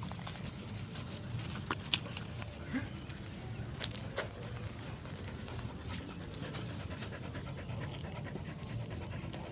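A village dog panting, with scattered small clicks and knocks from the dogs scuffling at play, the sharpest about two seconds in.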